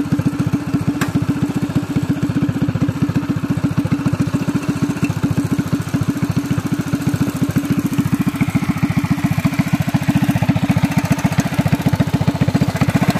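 Modified Predator 212cc single-cylinder engine with a header exhaust, on a Doodlebug mini bike, idling steadily with a rapid, even exhaust beat after the burnout.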